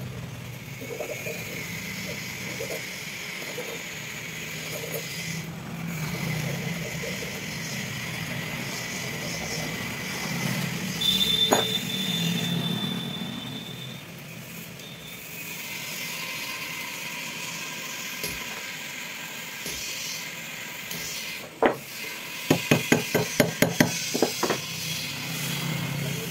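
Hand tools and metal parts of a water pump motor being handled and clinking on a wooden workbench during reassembly. About three-quarters through comes a quick run of about ten sharp metallic taps, the loudest sound.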